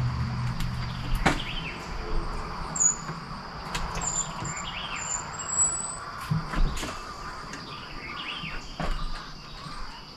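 Scattered sharp knocks and taps of carpentry framing work as a wooden rafter is fitted. Behind them is a steady insect drone with birds chirping, and a low hum fades out in the first second or so.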